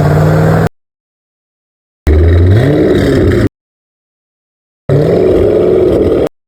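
Corvette C5's V8 engine revving loud in three brief cuts of about a second and a half each, separated by dead silence; in the middle one the revs climb steeply.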